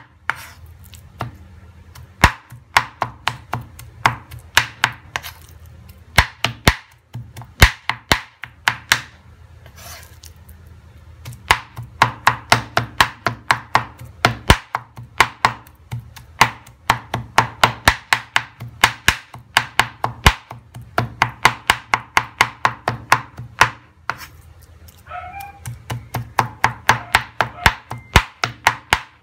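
A cleaver chopping raw shrimp into a paste on a wooden cutting board: quick, even knocks, about four a second, in runs broken by short pauses.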